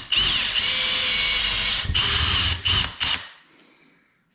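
Power drill with a wood bit boring a pilot hole into the wall for a lag bolt. The motor whine wavers in pitch with a few brief breaks, then stops about three seconds in and winds down.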